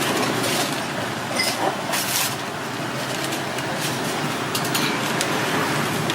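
Steady street traffic noise, with a few short sharp clicks about two seconds in and again near the five-second mark.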